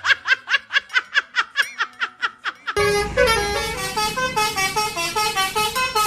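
Multi-tone 'telolet' bus horn playing a tune: first a fast run of short chirping notes, about five a second, then, about three seconds in, a melody of longer stepped notes over a low engine rumble.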